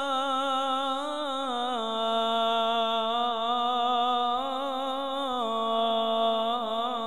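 A male Quran reciter's voice holding one long melodic note of tilawat, the drawn-out vowel between 'Isma'il' and 'wa-Ishaq', with ornamental wavering in pitch. The note steps down about two seconds in and again about five seconds in, without a break for breath.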